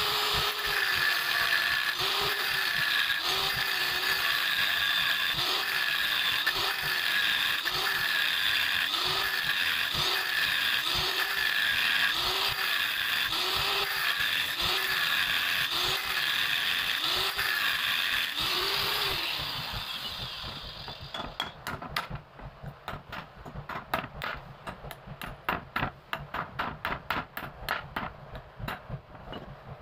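Angle grinder grinding the metal casing of an electric water-pump motor, its pitch dipping and recovering about once a second as the disc is worked back and forth against the casing. After about 20 seconds the grinder stops, and a string of light metallic clicks and taps follows as the motor and parts are handled.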